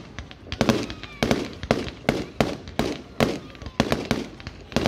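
Aerial firework shells bursting in a rapid series of sharp bangs, two or three a second, each followed by a rumbling echo.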